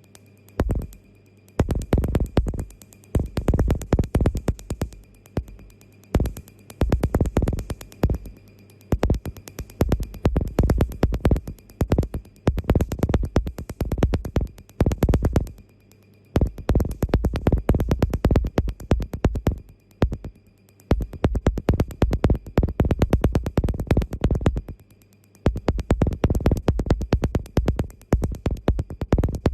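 Tattoo-removal laser firing, rapid snapping pulses about ten a second in bursts of one to three seconds with short pauses between. A faint steady hum from the machine runs underneath.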